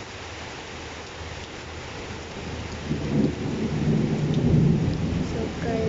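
Steady rain, then about three seconds in a low rumble of thunder builds and rolls on, louder than the rain.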